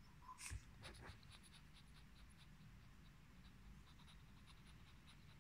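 Near silence with faint, scattered ticking and a soft knock about half a second in, fitting a puppy's claws tapping on a wooden parquet floor as it shifts and lifts its paws.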